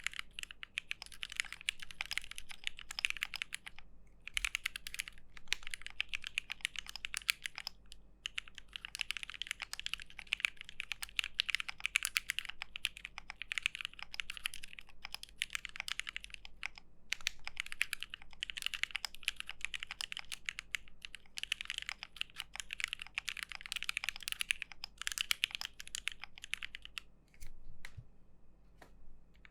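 Typing on an Aquila Alice-layout mechanical keyboard with JWK Dogikon switches mounted on a polypropylene (PP) plate: a fast, continuous run of key clacks that breaks off briefly a few times.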